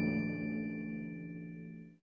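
Background music: the final notes of a light instrumental tune hold as a sustained chord and fade away, dying out at the end.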